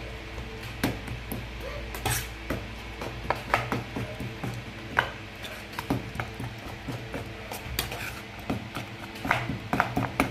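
Metal spoon beating a raw egg, minced pork and scallion mixture in a stainless steel bowl: irregular clinks and scrapes of the spoon against the bowl's side.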